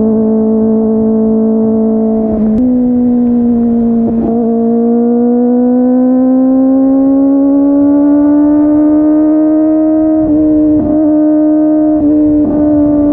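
Kawasaki ZX-25R SE's 250 cc inline-four running at high revs through a Yoshimura R55 slip-on exhaust while riding. Its pitch dips briefly about 2.5 and 4 seconds in, climbs slowly for several seconds, then breaks a few times near the end before holding steady.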